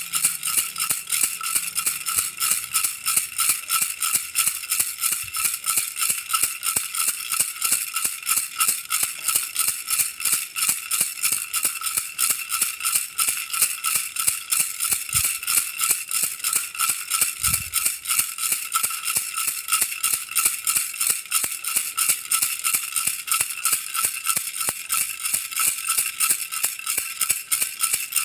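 A baby's toy rattle shaken steadily and rhythmically, about three shakes a second, its beads clattering brightly. Two faint low thumps come about halfway through.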